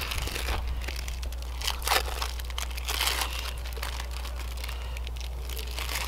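Thin clear plastic wrapper of individually wrapped cheese slices crinkling as the slices are peeled out and laid on the burgers, a run of quick, irregular crackles.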